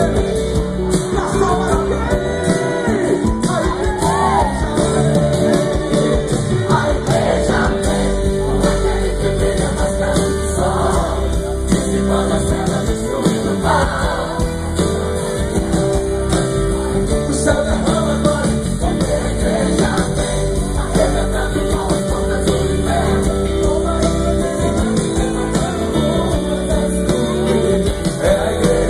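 Live gospel rock band playing loudly through a stage PA, with singing over the band.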